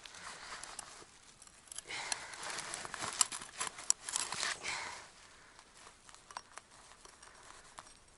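Rustling and crackling handling noise with many sharp clicks, loudest from about two to five seconds in, then a few quieter clicks, as a pike is pulled up through an ice-fishing hole.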